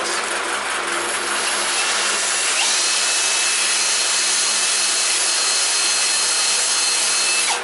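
Electric drill spinning a VW exhaust valve while sandpaper is held against its stem, sanding off a burr and light corrosion so the valve fits its new, tight valve guide. The drill's whine rises about two and a half seconds in, holds steady, then winds down near the end.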